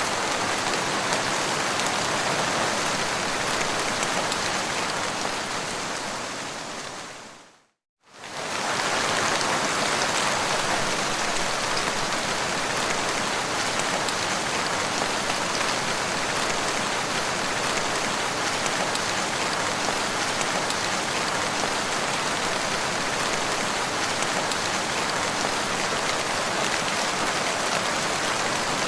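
Steady rain falling, an even hiss of drops on the ground. About seven seconds in it fades out to a moment of silence and fades straight back in.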